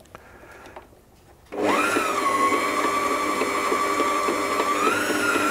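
Small electric food processor switched on about a second and a half in, its motor whining steadily as it whips egg whites. The pitch jumps up at start-up, holds, then rises a little again near the end.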